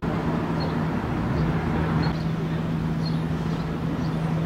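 Steady hum of a heavy road-works machine's engine over street noise, with a few faint high chirps.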